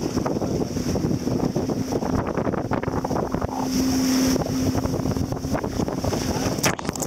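Speedboat engine running steadily with a constant low hum, under heavy wind buffeting the microphone, with a few sharp knocks near the end.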